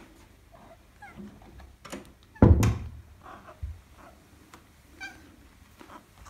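Maine Coon cat giving short meows, one about a second in and a clearer one about five seconds in. A loud thump comes about two and a half seconds in.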